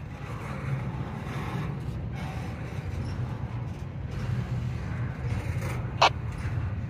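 Norfolk Southern double-stack intermodal train rolling past, its well cars' wheels giving a steady rumble on the rails, with a single sharp clank about six seconds in.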